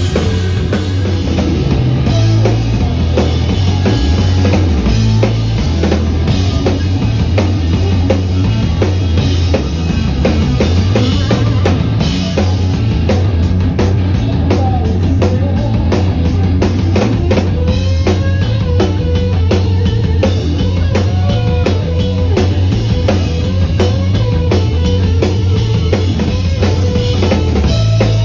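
A live rock band playing loud: an electric guitar over a full drum kit, with bass drum and snare carrying the beat and cymbals crashing throughout.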